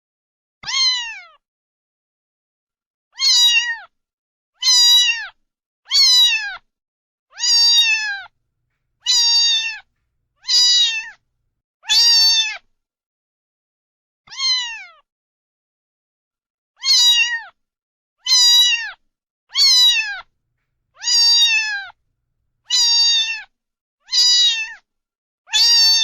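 A domestic cat meowing over and over: about fifteen meows, each about half a second long and falling in pitch, coming every second or two with a longer pause around the middle.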